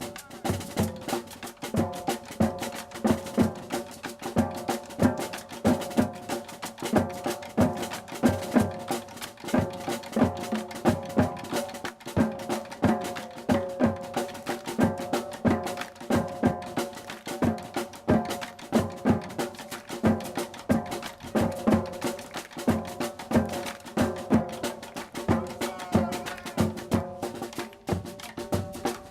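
Percussion music with a steady beat: regular drum and wood-block-like hits under struck pitched notes.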